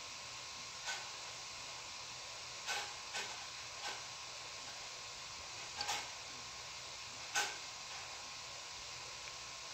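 Lemon peel rubbed on a flat metal hand grater: short scraping rasps, about six spread unevenly, as the yellow zest is grated off. A steady faint hiss lies under them.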